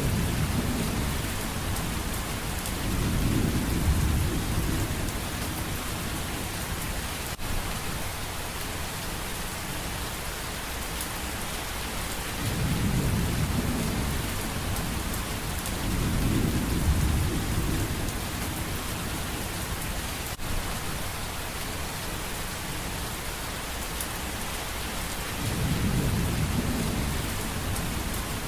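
Steady heavy rain with low rolls of thunder that swell and fade several times, the loudest about four seconds in and again past the middle.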